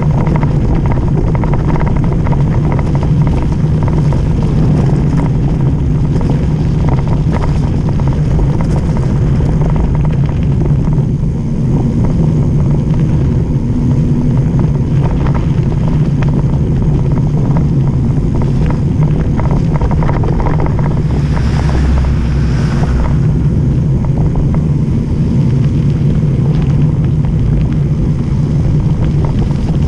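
Mountain bike descending fast on a gravel dirt road: steady wind rumble on the camera microphone over tyre noise, with many small rattles and clicks from the bumps. The rush swells briefly about two-thirds of the way through.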